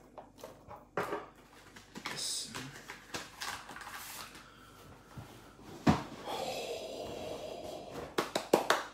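Handling noise from a plastic Ghostbusters neutrona wand replica: scattered clicks and knocks as it and its battery cap are handled, with one sharp knock about six seconds in.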